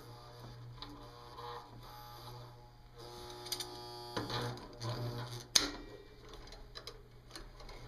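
Small brushed electric motor from an old palm massager running on a variac with a low hum and light ticking, straining as fine wire is fed into it and chewed up inside; one sharp click about five and a half seconds in. It is close to jamming under the load of wire.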